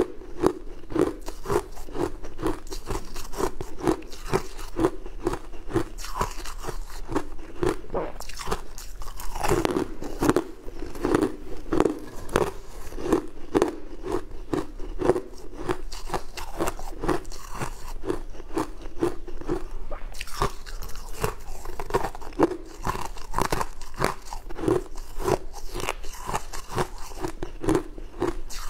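A person chewing a mouthful of shaved ice or frost, a steady run of close crunches at about two to three a second.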